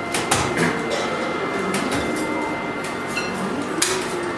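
Hot caramel mass being pulled on a steel candy hook: a handful of sharp slaps and knocks as the rope is thrown over the hook and against the steel plate, over steady room noise.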